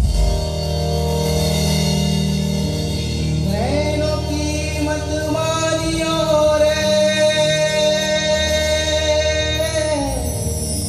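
A man singing solo into a microphone over instrumental accompaniment. The accompaniment starts abruptly; about three and a half seconds in the voice comes in with an upward glide into one long held note.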